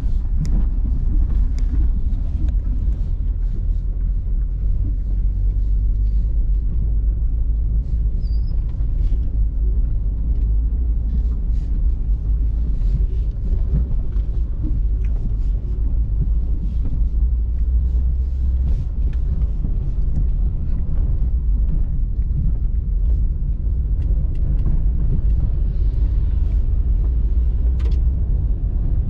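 Steady low rumble of a car driving, heard from inside the cabin: engine and tyre noise on a rough, partly unpaved road, with occasional faint rattles and ticks.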